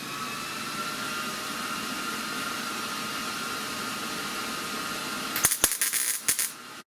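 A small motor running at a steady speed with a held high whine, like a power tool spinning free. A quick run of sharp clicks and knocks comes about five and a half seconds in, and then the sound cuts off abruptly.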